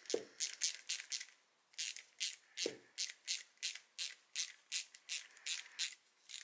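A hex-bit driver turning the reach adjuster screw of a Hope Race Evo brake lever inward, clicking steadily at about three clicks a second.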